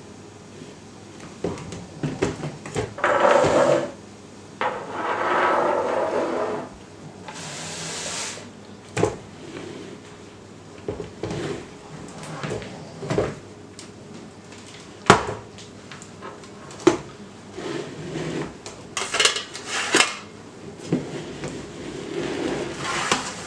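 Kitchenware being handled on a wooden table: scattered knocks and clatter from an electric hand mixer and a plastic mixing bowl, with a few longer stretches of scraping noise in between.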